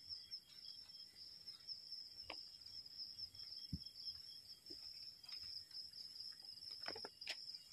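Faint, steady high chirping of crickets, with a few faint scattered clicks and taps, more of them near the end.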